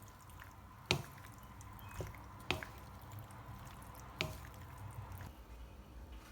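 Four light, sharp taps at uneven intervals over a faint steady hum.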